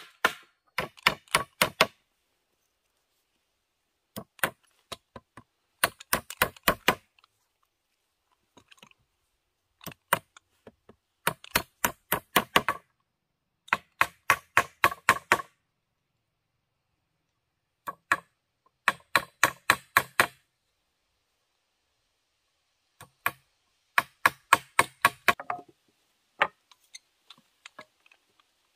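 A blade chopping bamboo poles on a wooden log: quick runs of sharp knocks, several strikes a second, each run lasting a second or two, with short pauses between runs.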